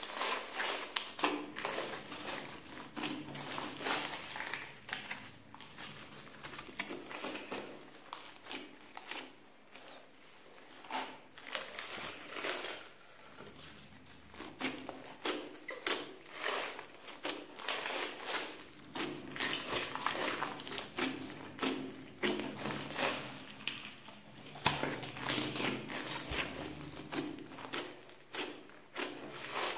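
Hands kneading and poking a large lump of slime mixed with clay and floam beads: a dense, irregular run of small sticky pops and crackles as fingers press into the slime and pull out of it.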